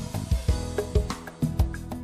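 Background music: a plucked-string tune with a steady beat.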